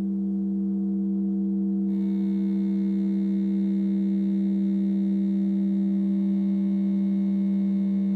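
Instrumental music: a single low synthesizer note held steady, with a brighter, higher layer joining about two seconds in.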